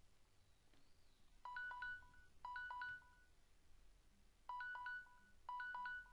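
Faint electronic ringing tone: short warbling two-pitch beeps in two pairs, the first pair about one and a half seconds in and the second about four and a half seconds in.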